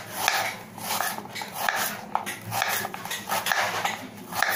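A kitchen knife slicing peeled raw banana into rounds on a plastic cutting board: short cutting strokes about twice a second, with a light click of the blade on the board now and then.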